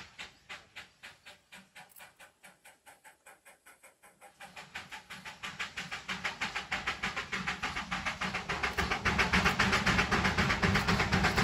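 Darjeeling Himalayan Railway B-class 0-4-0 saddle-tank steam locomotive No. 19B, Sharp Stewart-built, working a train, its exhaust beating out a fast, even chuff of about four to five beats a second. The beats grow steadily louder from about four seconds in as the engine approaches.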